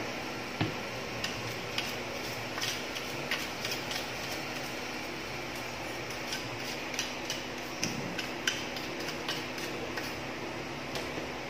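A toothbrush scrubbing the circuit board of a desktop power supply: irregular light ticks and short scratchy strokes, over a steady background noise.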